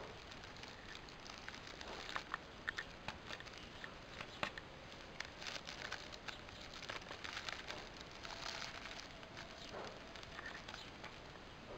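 Thin plastic bag crinkling and rustling as a kitten bites and paws at it, with irregular small clicks and taps.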